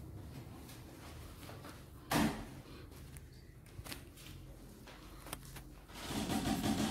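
A sharp knock or thump about two seconds in, a couple of faint clicks, then a second of rustling movement near the end.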